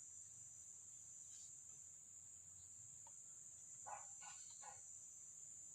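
Near silence with a faint, steady high-pitched trill of crickets.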